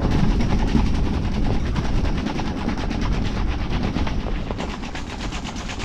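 Ice-fishing tent's fabric walls flapping and rattling rapidly in gusty storm wind, with a low wind rumble underneath. The flapping eases a little in the last couple of seconds.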